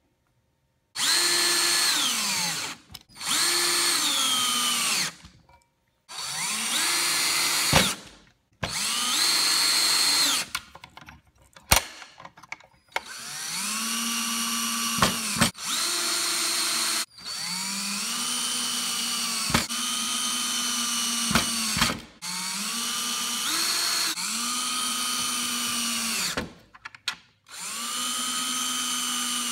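A power driver drives small screws into a pine board in about ten short runs of motor whine. The pitch falls at the end of each run as the motor slows with the screw seating, and a few sharp clicks come between runs.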